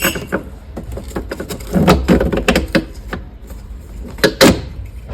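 Knocks, clicks and clatter of two cover plates being taken out of a machine's pickup door compartment, with a busy patch about two seconds in and two sharper knocks near the end.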